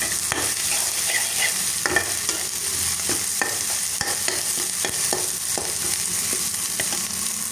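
Onions, cumin seeds and ginger paste sizzling in oil in a pan while a spoon stirs them, with irregular clicks and scrapes of the spoon against the pan over a steady hiss. The masala is being fried to cook off the raw taste of the ginger.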